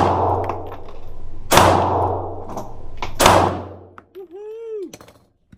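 Taurus Spectrum .380 ACP pocket pistol fired three times, about a second and a half apart, each shot echoing in an indoor range. Then a brief rising-and-falling tone, and a click at the very end.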